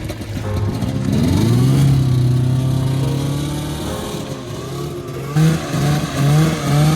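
Snowmobile engine revving: it climbs in pitch about a second in and holds a steady high run, then is blipped up and down several times in quick succession near the end.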